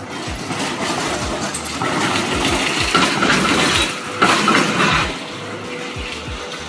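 A tram passing close by with a rumbling, rattling noise, loudest about three to five seconds in, then easing off. Under it runs background music with a deep kick drum repeating steadily.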